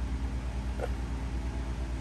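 A low steady hum that pulses evenly, with one faint click a little under a second in.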